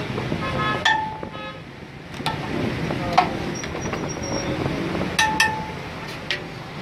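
Several sharp clinks of a metal serving ladle and ceramic plates, each ringing briefly, over a steady background of traffic and street noise.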